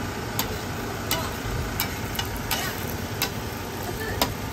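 Food-preparation clatter: sharp utensil clicks, about one every 0.7 seconds, over a steady frying hiss.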